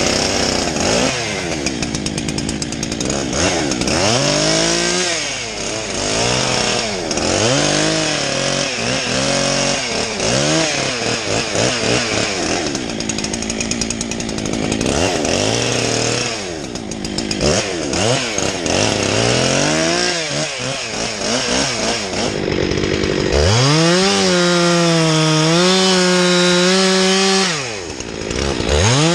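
Chainsaw cutting wood, its engine speed repeatedly dipping under load and picking back up. About two-thirds of the way in it runs at a steady high speed for a few seconds, drops off, then revs up again near the end.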